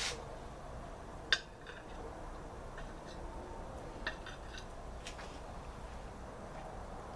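A few light clinks and taps of metal cooking utensils against a plate or griddle while toppings are piled onto a burger, the sharpest about a second in, over a low steady background hum.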